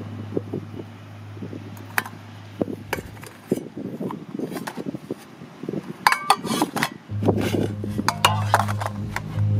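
Stainless steel camping bowls and plates clinking and scraping against one another as they are lifted off a nested stack, with the loudest, ringing clinks about six seconds in. A soft music bed with a steady low bass plays underneath and drops out for a few seconds in the middle.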